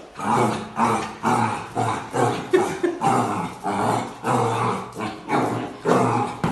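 A dog vocalizing in a string of short growls, about two a second.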